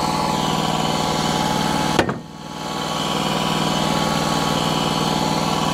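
Portable band sawmill's engine running steadily, with a sharp click about two seconds in, after which the sound dips briefly and builds back up.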